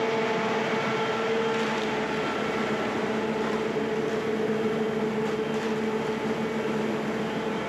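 Concrete mixer lorry running steadily: a constant mechanical hum with a few held tones.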